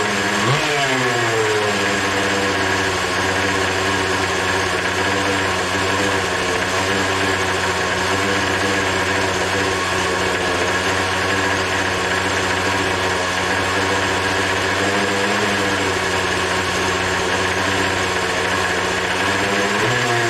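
Small two-stroke Poulan Pro leaf-blower engine running on nitromethane RC car fuel. It runs at a steady speed after dropping in pitch in the first second, and dips briefly near the end. The owner judges that it is running far too lean on this fuel through a cheap Weed Eater carburetor.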